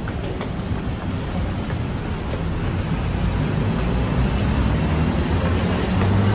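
Steady rumble of city road traffic, growing slightly louder toward the end.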